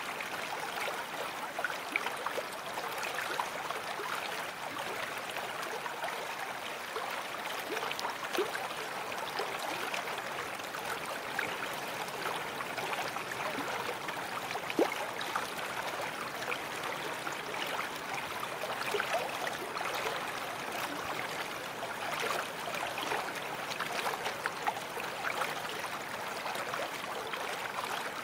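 Babbling brook: a steady rush of flowing water with small plops and gurgles scattered through it, one sharper plop about fifteen seconds in.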